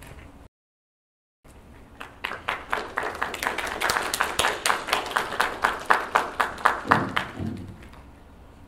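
A small group clapping in applause, the separate claps distinct, building up after a brief total dropout of the sound and fading out near the end.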